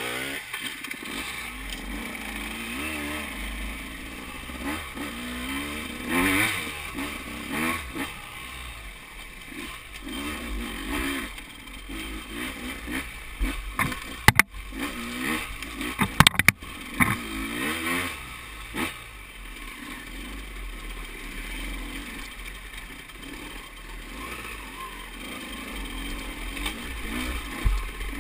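2014 KTM 200 XC-W's two-stroke single-cylinder engine being ridden on rough ground, revving up and down with the throttle. There are a few sharp knocks about halfway through.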